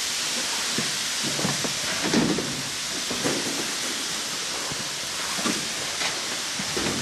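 Rustling of protective-suit fabric and irregular dull footsteps as a suited worker moves on foot, over a steady hiss.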